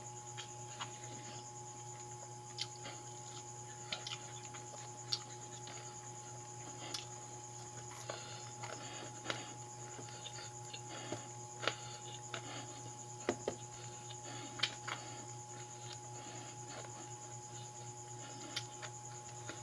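Close-up eating sounds of a person eating fried dried fish and pancit noodles by hand: chewing and mouth smacks in irregular sharp clicks a second or so apart, over a steady low hum.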